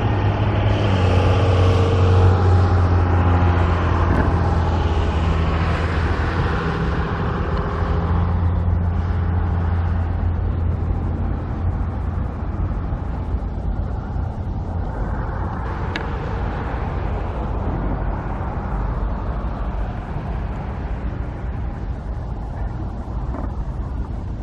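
Motor vehicle engine running with a steady low hum, easing off about nine seconds in, over a wash of road traffic noise.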